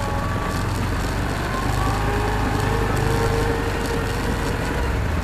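Argo amphibious ATV's engine running steadily under way, its pitch rising slightly and growing a little louder around three seconds in.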